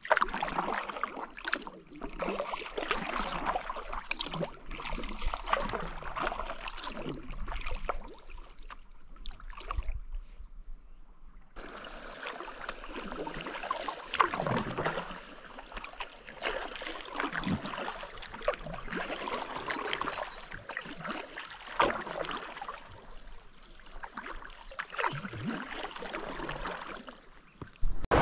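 Kayak paddle strokes dipping and splashing in the water, with water trickling and gurgling around the hull. The sound changes abruptly about twelve seconds in.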